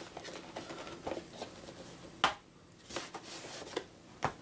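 Cardboard game box being opened by hand, with rustling and small clicks, and two sharp knocks about two seconds in and near the end as plastic tubs of modelling clay are set down on a wooden table.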